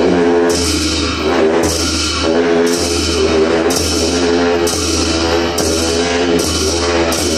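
Tibetan monastic ritual music: a pair of dungchen long horns hold a deep, steady drone, with drum and cymbal strokes landing about once a second.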